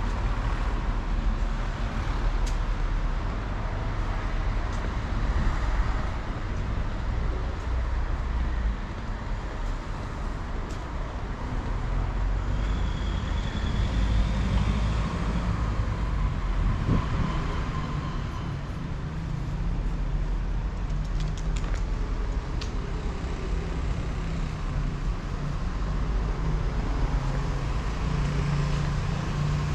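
Road traffic going by on a city street, a steady low rumble.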